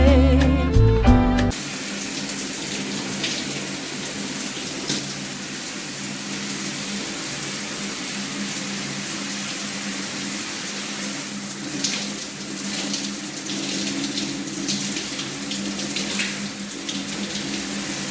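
Water running steadily from a faucet or shower, an even hiss with small changes in the flow now and then. Background music ends just before it.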